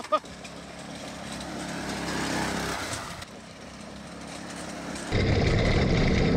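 Go-kart's Predator 212 single-cylinder engine running under throttle, the level rising as the kart accelerates over dirt. The engine sound jumps much louder and closer about five seconds in.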